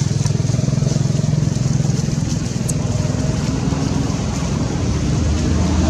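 A motor engine running steadily, its pitch rising slightly near the end.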